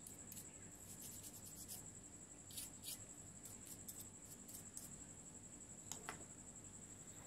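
Faint scratching of a toothbrush scrubbing a car alternator's brush holder, in several runs of short quick strokes, then a light tap about six seconds in as the part is set down on the bench. A faint steady high-pitched whine runs underneath.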